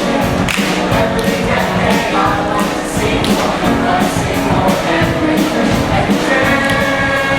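Music with a steady drum beat and singing.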